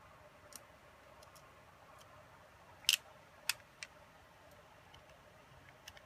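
Scattered light clicks and taps of a small hex screwdriver and DJI Phantom 3 gimbal parts being handled, with the driver fitted into a screw on the gimbal arm. The loudest is a sharp double click about three seconds in, followed by two smaller clicks.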